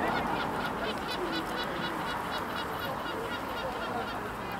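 A bird calling: a rapid, even run of short high chirps, about four a second, that stops near the end.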